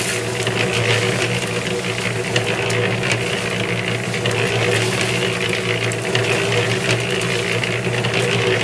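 Harbor Freight electric concrete mixer running with a load of concrete, its motor humming steadily and the drum's gear drive rattling.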